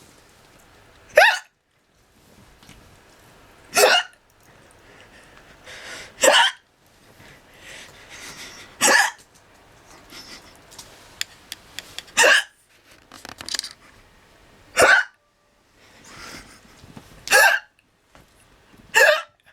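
A girl hiccuping: short, loud hiccups coming regularly about every two and a half seconds, eight in all.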